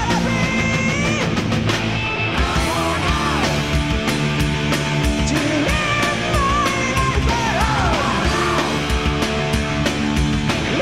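Live power metal band playing at full volume: pounding drums and distorted guitars, with a high melody line that bends and wavers over the top.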